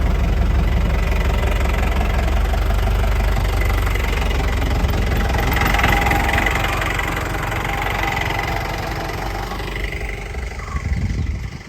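Vehicle engine running steadily, a little louder around the middle and easing off near the end.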